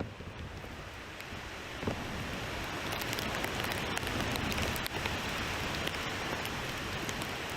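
Steady rain, an even hiss that grows louder over the first few seconds and then holds, with a few scattered drops ticking.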